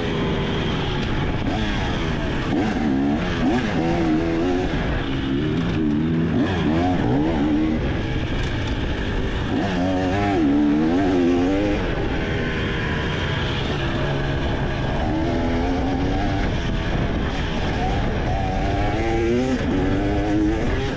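A 2023 KTM 300 XC's fuel-injected single-cylinder two-stroke engine being ridden hard, revving up and down over and over as the throttle is opened and closed, its pitch rising and falling every second or two.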